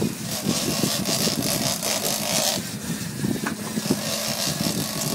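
A boat's motor running steadily under a hiss of wind and sea noise, with a couple of light knocks about three and a half seconds in.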